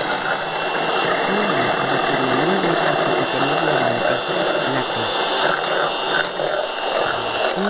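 Black & Decker Power Pro electric hand mixer running steadily, its twin beaters whipping egg whites in a bowl to stiffen them.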